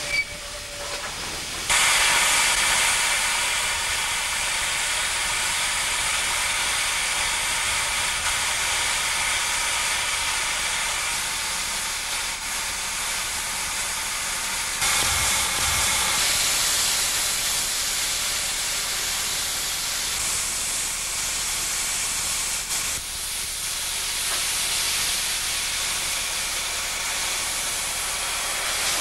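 LNER K4 class 2-6-0 steam locomotive, stationary, blowing off steam: a loud, steady hiss that starts suddenly about two seconds in and carries on, briefly louder around halfway.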